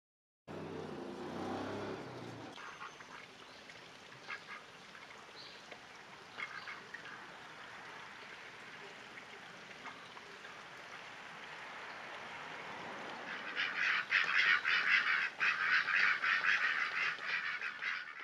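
Mallard ducks quacking: a few scattered calls, then a long burst of rapid quacking in the last few seconds, over a faint steady hiss of flowing water.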